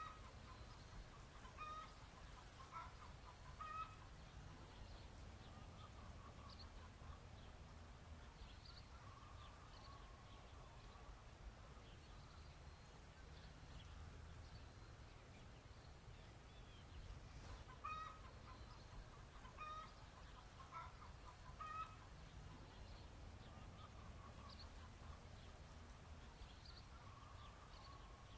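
Faint clucking of chickens: clusters of short calls near the start and again about two-thirds of the way through, over a low steady rumble.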